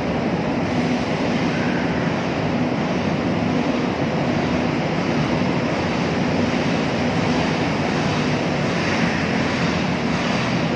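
Steady machinery drone with a constant low hum under a rushing noise, no let-up or sudden events: heavy diesel equipment running during trailer loading on a ro-ro ship's deck.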